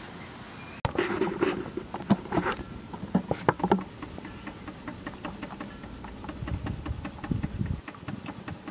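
Kenneth Wells miniature live-steam traction engine running: a rapid, uneven clatter of clicks and knocks from its cylinder and crank, starting about a second in and softer in the second half. The engine is still tight and not yet run in, and it is working on little steam.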